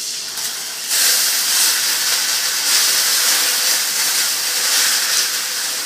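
Milk poured into a hot pan of melted butter and brown-sugar caramel, sizzling with a steady hiss that starts suddenly and grows louder about a second in.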